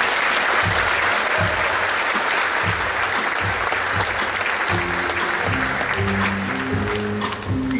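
Audience applauding over circus music with a steady drum beat; about halfway through, a bass line comes in and the clapping begins to fade.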